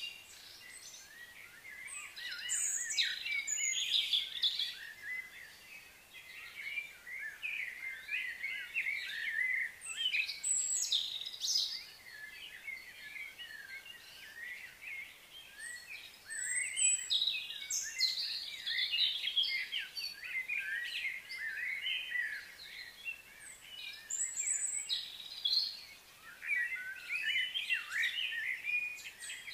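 Outdoor birdsong: several small birds chirping and calling over one another in dense bursts, with quieter gaps between.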